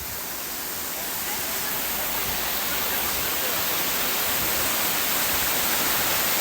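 Rushing, cascading water of Dunn's River Falls, a steady full hiss that grows gradually louder.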